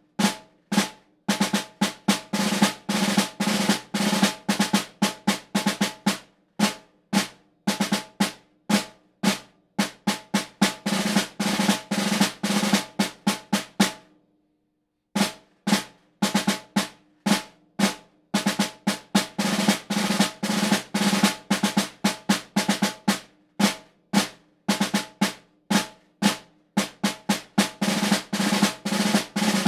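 Solo snare drum played with wooden sticks, a march snare part of sharp strokes and short press rolls with a crisp snare-wire rattle. There is a pause of about a second near the middle before the part resumes.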